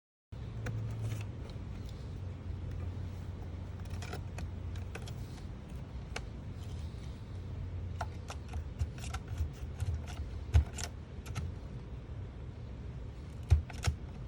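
Clicks, taps and small snaps of a laptop's plastic screen bezel and LCD panel being pried and handled during removal, over a low steady hum. The sharpest snaps come about ten and a half seconds in and again near the end.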